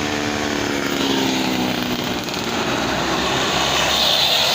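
Medium-size bus passing on a steep downhill, its engine note falling slightly as it goes by, then tyre and road noise.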